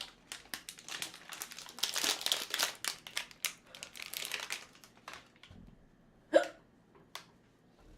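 Crinkling and rustling for about five seconds, then a single loud hiccup from a woman about six seconds in.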